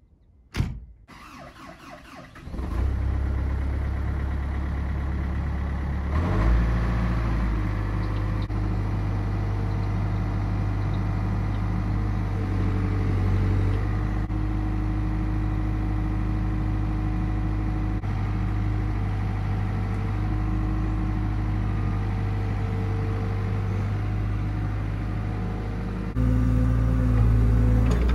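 Caterpillar hydraulic excavator's diesel engine started from cold in near-freezing air. A sharp click comes just under a second in, and the engine catches about two and a half seconds in. It runs steadily, picks up speed about six seconds in, and has a higher tone coming and going over the engine note.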